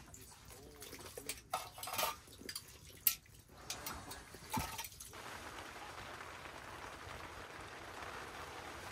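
Water running and dripping from the tap of a plastic water jerry can, with knocks and clinks of kitchen things being handled. About five seconds in, this gives way to a steady hiss of rain on the tent.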